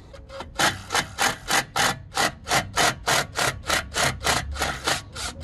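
Cordless impact driver hammering at the small hex screw that holds a front brake disc to the hub, a steady rasping rattle of about five blows a second as it works to loosen the screw.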